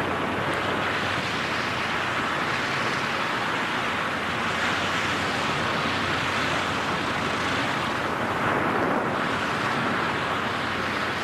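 Steady rush of wind over the microphone as skydivers fall through the air in freefall.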